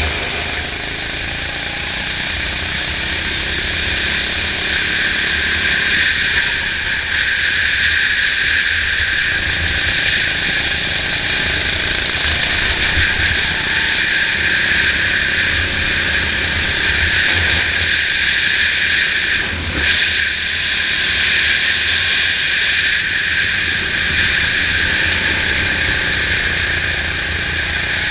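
Racing kart's engine running hard at speed, a steady high-pitched engine note over a low rumble, recorded by a camera mounted on the kart. The level dips briefly about two-thirds of the way through.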